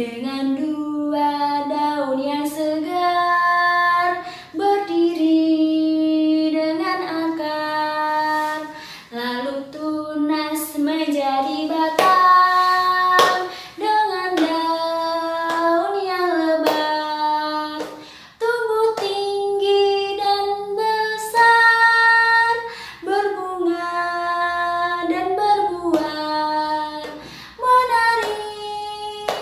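A woman singing a children's song in Indonesian about the parts of a plant, in a bright, high voice with clearly held notes, clapping her hands now and then.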